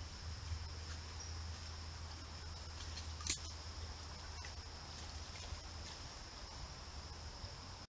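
Steady high trill of crickets over a low steady hum, with a sharp click a little past three seconds in and a fainter tick about a second later.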